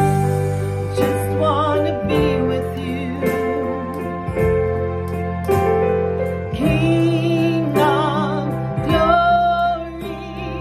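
A woman singing a gospel worship song with wide vibrato, over sustained keyboard chords that change every second or two.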